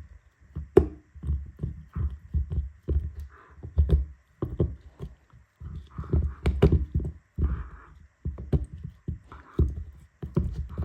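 Irregular series of soft, low thumps and knocks, a few a second, with no music or speech.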